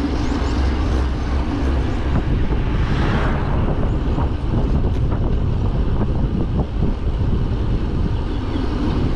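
Steady wind rush over the microphone of a camera on a moving road bike, with road noise underneath; a broad swell of noise rises about three seconds in.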